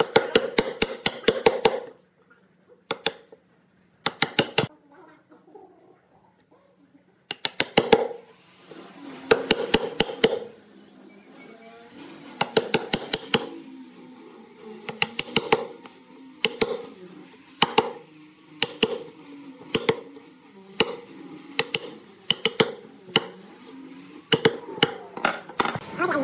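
Wood chisel being hammered into a log to cut a mortise: runs of quick, sharp blows with short pauses between them, and wood chips splitting away as the chisel bites.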